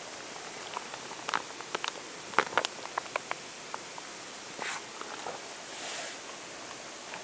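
Salt being sprinkled onto edamame in a metal camping pan: grains tick and patter on the metal and the pods in a scattered run of small sharp clicks, followed by two short hissing sprinkles, over the steady rush of a river.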